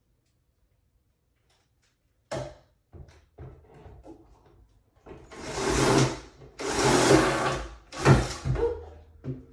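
Cordless drill driving screws into wooden shelf boards: a sharp knock and a few small clicks, then three bursts of the drill running, each about a second or less.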